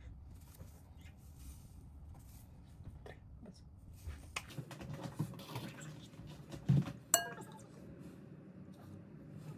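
Kitchenware clinking and knocking: scattered light clicks, a loud knock about seven seconds in, then a sharp clink that rings on and fades.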